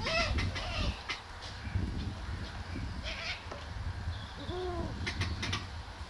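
Two short animal calls, each rising and falling in pitch, one at the start and one about four and a half seconds in, over a steady low rumble.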